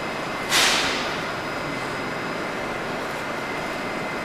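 A steady hum inside a Metrowagonmash 81-765 metro car standing at a platform. About half a second in, a sudden loud hiss of compressed air fades away over about a second: the train's pneumatic brakes venting.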